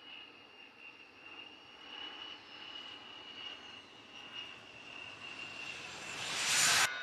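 A-10 Thunderbolt II's twin TF34 turbofan engines with a steady high whine as the jet lands and rolls past close by. It grows louder toward the end, peaks as the aircraft passes, then cuts off suddenly.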